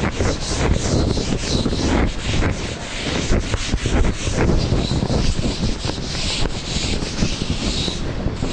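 Felt duster rubbing a chalkboard in repeated back-and-forth strokes, wiping chalk off the board.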